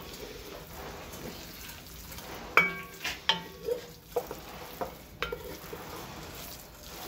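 A metal utensil stirring cheese curds in an enameled cast-iron Dutch oven, with a faint steady sizzle of curds melting in butter. In the middle of the stirring, the utensil knocks against the pot about seven times, each clink ringing briefly.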